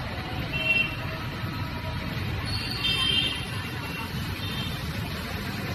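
Road traffic on a wet street: a steady rumble of vehicles passing, with short high tones just under a second in and again around the middle.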